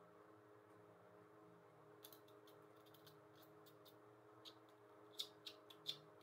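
Small, light clicks of eggshell halves tapping together as egg yolks are separated by hand, sparse at first, then a few sharper clicks near the end, over a faint steady hum.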